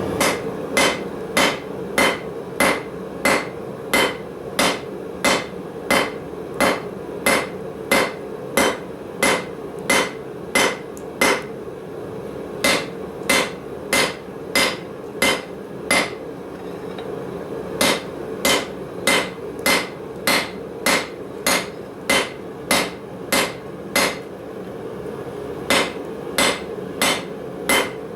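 Hammer blows on hot steel over an anvil while forging blacksmith tongs. The blows come steadily, a little under two a second, each with a bright ring, and pause briefly three times. A steady hum runs underneath.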